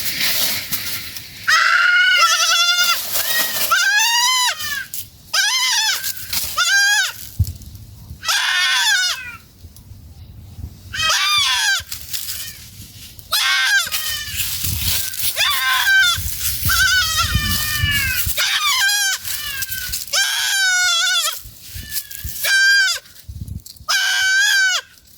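Goats bleating over and over, a dozen or more wavering, quavering calls one after another with short gaps, some overlapping.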